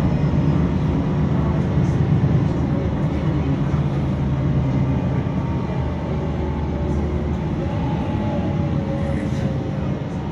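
Cabin sound of a VDL SB200 single-deck bus on the move: engine running steadily under road noise, with a groaning tone that drifts in pitch over it, easing slightly toward the end.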